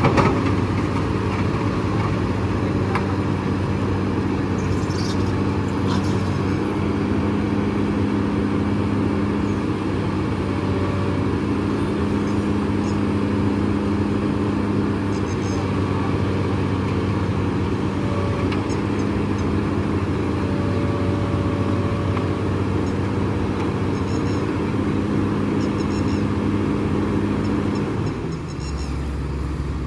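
SANY crawler excavator's diesel engine running steadily at high revs, working under load as the machine climbs and pushes onto a flatbed truck. A little before the end the engine drops to a lower, quieter note.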